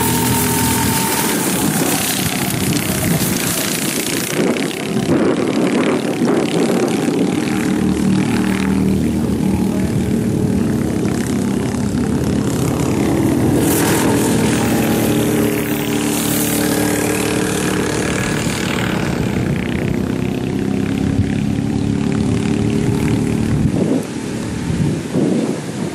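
Rental go-kart engines buzzing as the karts lap the track. Several engine notes overlap, their pitch rising and falling as the karts brake and accelerate through the corners.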